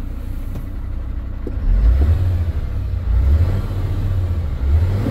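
MAN TGL 12.250 truck's six-cylinder diesel engine, heard from inside the cab, idling in neutral and revved up several times: the rumble swells about two seconds in, again around three seconds, and once more near the end.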